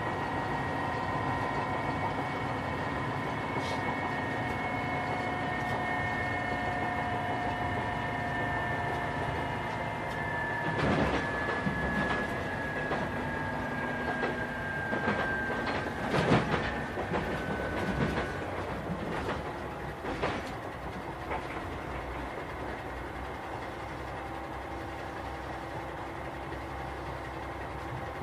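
JR Shikoku 2000 series diesel railcar with its Komatsu SA6D125H engine on the exhaust brake, heard from inside the car as it slows: a steady whine that slowly falls in pitch. Partway through, the wheels clatter over rail joints in a run of clicks and knocks. The running then goes quieter as the train draws into the station.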